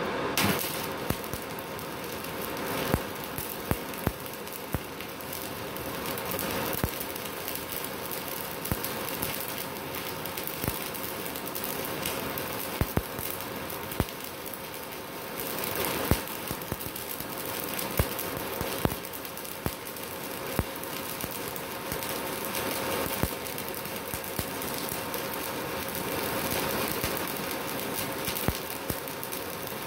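Stick (MMA) welding arc crackling and sizzling steadily, with sharp irregular pops throughout, from a MultiPro inverter welder set at 120 amps.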